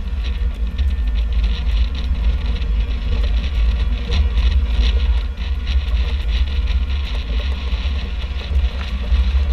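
Wind buffeting the microphone on the deck of a catamaran under sail, a steady low fluttering rumble, with a lighter hiss of water rushing along the hulls.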